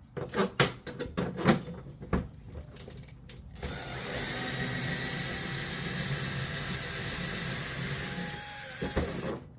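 A few sharp clicks and knocks of a tool being fitted to a bolt, then a power drill running steadily for about five seconds as it backs out a long bolt holding a hood scoop, stopping just before the end.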